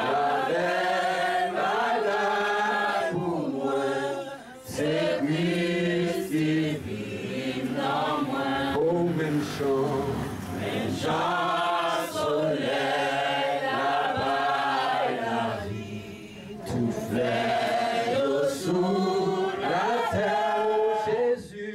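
Voices singing a slow hymn, in long held, gliding notes, phrase by phrase with short breaths between.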